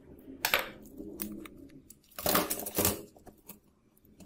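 Handling sounds of a cracked smartphone being opened: a sharp click about half a second in, then a louder clattering rattle a little after two seconds as the screen assembly comes away from the phone's body.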